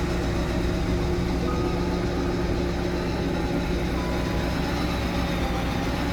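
Lada Niva VAZ-21213's four-cylinder petrol engine idling steadily.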